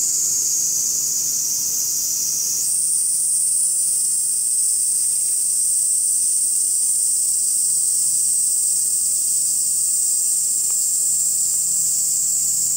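Steady, high-pitched chorus of cicadas, with its pitch stepping up slightly about three seconds in.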